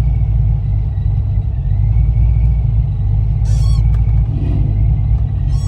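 Car in motion heard from inside the cabin: a steady low engine and road rumble.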